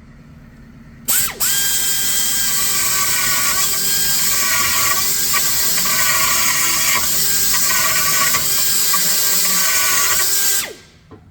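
Die grinder starting up at high speed about a second in and grinding out a hole, with a high whine whose pitch dips and wavers as the bit bites. It stops near the end, the pitch falling as it spins down.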